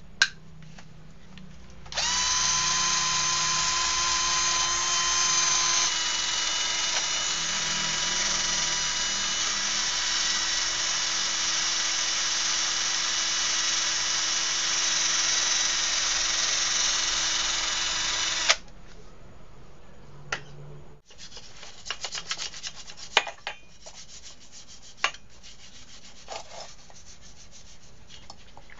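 Handheld electric grinder running steadily for about sixteen seconds against the gasket face of a Honda Vario 110 FI cylinder head, cleaning off carbon; its whine dips slightly in pitch a few seconds after it starts, then it cuts off suddenly. Afterwards a brush scrubs the head, with scattered small clicks and taps.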